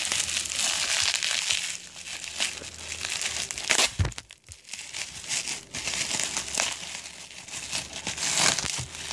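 Plastic bubble wrap crinkling as a bottle wrapped in it is handled and unwrapped, with two sharp clicks close together about four seconds in.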